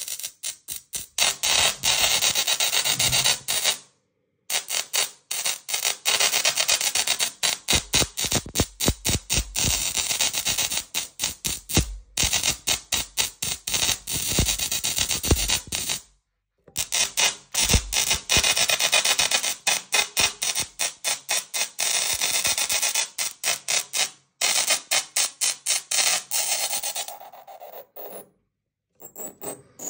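Small musical Tesla coil playing a tune through its sparks: a buzzy, rasping crackle chopped into quick rhythmic notes, with a few brief pauses between phrases.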